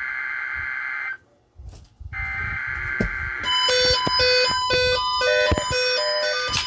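Emergency Alert System SAME header data bursts over NOAA Weather Radio: a harsh, buzzing digital screech that cuts off about a second in, pauses for about a second, then starts again. From about halfway through, melodic music-like tones sound over it.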